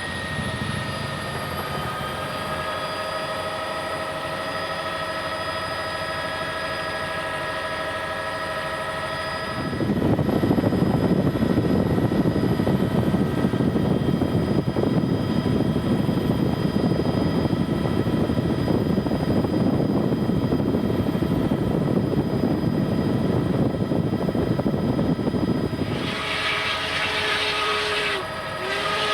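Helicopter noise heard from on board: a steady turbine whine with several tones over the rotor noise. About ten seconds in, a much louder, lower rushing rumble takes over and lasts until near the end.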